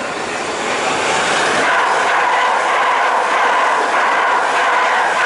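South West Trains Siemens Desiro electric multiple unit passing non-stop through a station at speed, getting louder about a second in as it draws near. A steady electric whine sits over the rush of its wheels on the rails.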